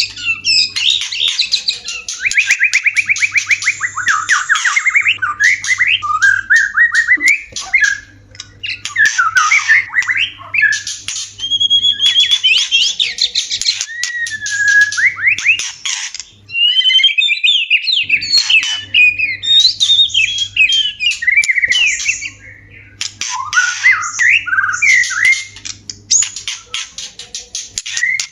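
White-rumped shamas in breeding-season calling: fast, varied whistled phrases rising and falling, a rapid trill, and harsh clicking chatter, with short pauses between bursts.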